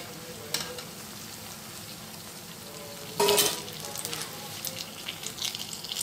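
Besan-battered stuffed green chillies deep-frying in hot oil in a metal wok: a steady sizzle with crackling pops, and a louder clatter about three seconds in.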